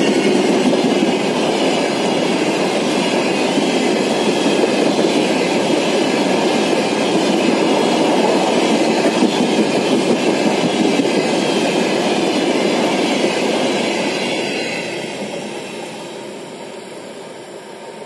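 Freight train of covered hopper wagons rolling past close by, the wheels rumbling steadily over the rails. The sound fades away from about fourteen seconds in as the last wagons pass and recede.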